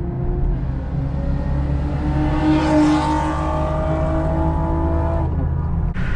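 Honda J35 V6 engine running at fairly steady revs, swelling louder about halfway through. The sound changes abruptly near the end.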